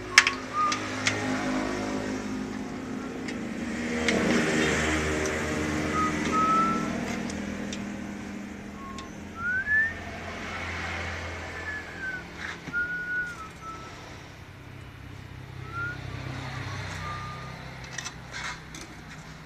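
A motor running with a steady low hum that swells for a few seconds, with scattered clicks and several short, high chirps or squeaks.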